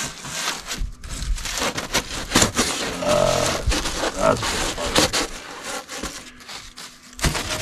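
Rigid foam insulation board with a foil face scraping and crackling as it is pressed into a snug wooden 2x4 frame, with a short squeak of foam against wood about three seconds in.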